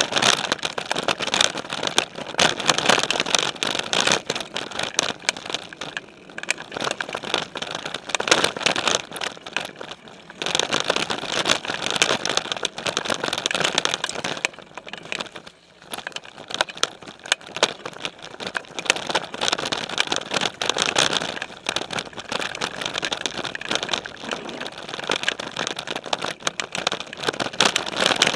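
Specialized Stumpjumper mountain bike rolling over a dirt singletrack, heard from a camera on its frame: tyre noise on dirt and rocks with many rattles and knocks from the bike. It gets louder and quieter by turns, with brief lulls.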